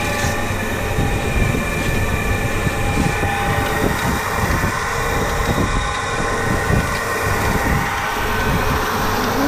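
Massey Ferguson 399 tractor running, heard from inside its cab: a steady engine and transmission whine over constant rattling and knocking.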